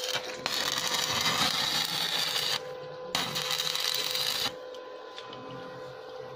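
Arc welding on a steel gate post: two stretches of loud hiss, about two seconds and a second and a half long, each starting and stopping abruptly.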